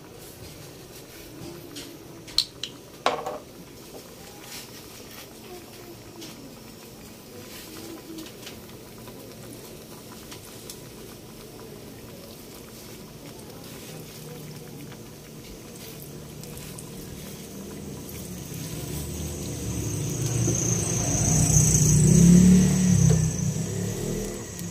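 Pot of galunggong adobo in vinegar and soy sauce simmering, with two sharp clinks a couple of seconds in and a louder sound that swells, peaks and fades near the end.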